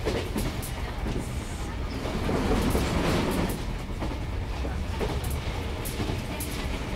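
Interior of a JNR Yokosuka Line electric train under way: a steady low rumble with sharp clicks of the wheels over rail joints, several of them near the end. The running noise swells from about two seconds in to about three and a half.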